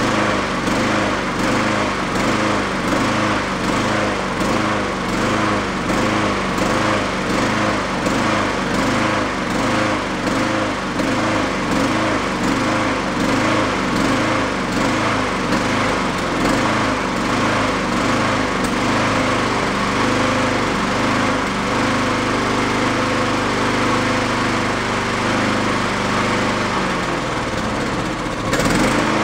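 Honda Harmony 216 lawn mower engine running and hunting, its speed swelling and falling in a quick, even rhythm, then holding steadier about two-thirds of the way through. The owner blames the hunting on a clogged idle circuit in the carburetor, which a drilled-out main jet has not cured.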